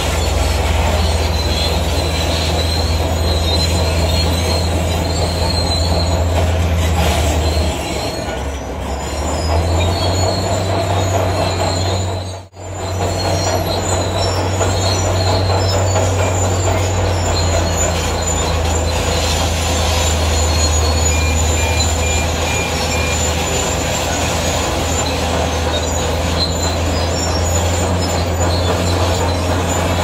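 Zoomlion crawler bulldozer's diesel engine running steadily under load with a low drone, while its steel tracks squeal and grind as it pushes gravel. The sound cuts out sharply for a moment about halfway.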